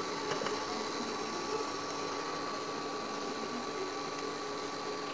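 Soft, steady sizzle of cumin seeds and dried red chillies frying in hot mustard oil in a pressure cooker, over a steady faint hum.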